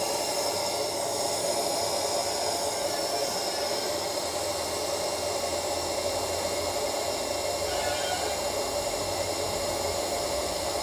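Small DC air-blower motor and fan of a hot-air SMD rework station running steadily, a constant whirring rush of air. The motor had been seizing and has just been oiled; it is now running smoothly.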